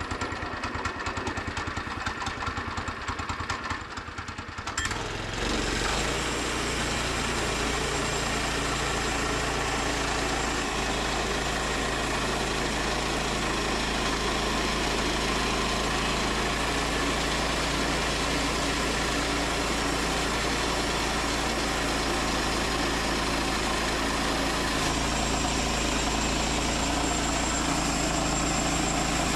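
Woodland Mills HM122 sawmill's small gas engine idling with an uneven, pulsing beat, then throttled up about five seconds in to run at a steady high speed.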